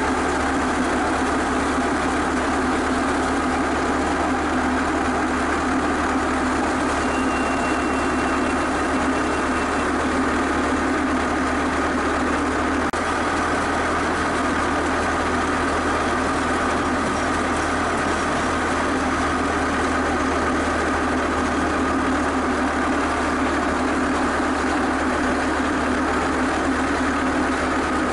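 Diesel engine of a mid-1970s skid steer running steadily while its loader arms work; the engine sound is loud.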